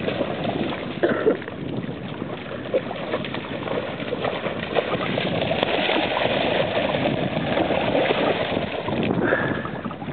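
A dog splashing as it runs and wades through shallow lake water: a steady, churning rush of water with small irregular splashes.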